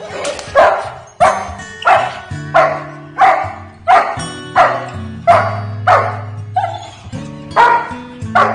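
German Shepherd barking steadily at the helper in protection training, a regular run of about a dozen sharp barks, roughly three every two seconds, over background music.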